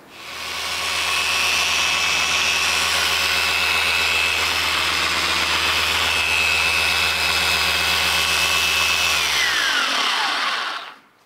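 Electric car polisher running steadily with a thin high whine. Near the end it is switched off and the whine falls away as the pad spins down.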